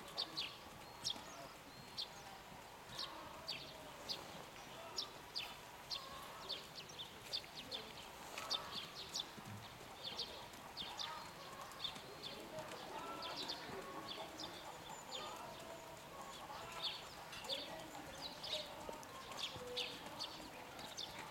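Horse walking on a sand arena, with a steady run of short, high clicks at about two or three a second.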